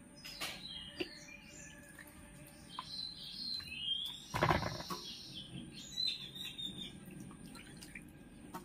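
Birds chirping in short gliding calls, over faint water sounds and small clicks as a hand picks small fish out of a basin of water into a steel bowl. There is one short, louder noise about four and a half seconds in.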